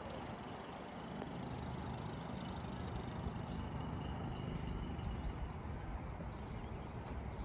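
Steady outdoor background noise with a low, uneven rumble and no distinct event.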